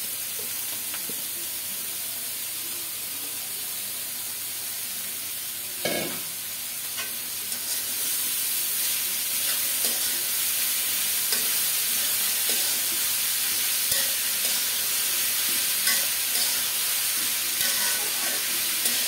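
Chopped ash gourd sizzling in hot mustard oil in a pan, with a spatula scraping and knocking against the pan as it is stirred. There is a louder knock about six seconds in, and the stirring gets busier from about eight seconds on.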